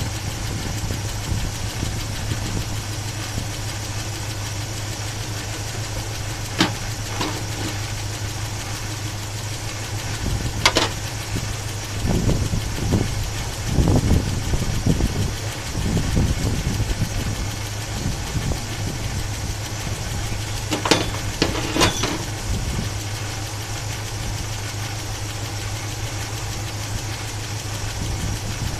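Chevrolet 350 small-block V8 idling steadily, with a few sharp clicks now and then and a group of three about 21 seconds in. The engine has a top-end noise, which the owner suspects may be a stuck valve lifter.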